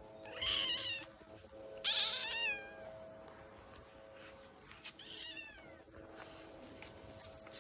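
Bobtail cat meowing three times, high-pitched calls that fall away at the end, the middle one the loudest.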